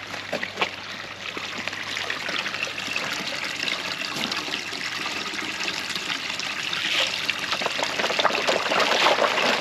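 Koi pond water trickling and splashing, with many small, irregular splashes and slurps at the surface that grow slowly louder.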